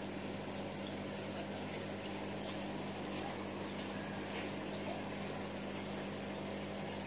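Aquarium aeration bubbling steadily, with a constant low pump hum and a few faint ticks.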